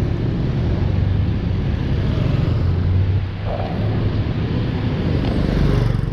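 Steady road traffic noise: a continuous low rumble of passing cars and other vehicles.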